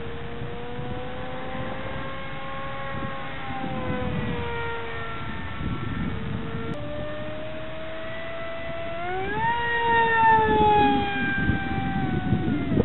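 Parkzone Stryker F27C flying wing in flight: its NTM 3000kv brushless motor and 6x4 prop give a whine that glides slowly up and down in pitch. About nine seconds in the whine climbs sharply and is at its loudest, then slides back down.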